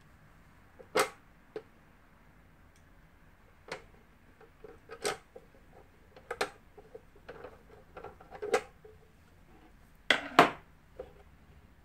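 Irregular clicks and knocks from hands working the controls and plastic body of a Lion 372 household sewing machine, the loudest two close together near the end.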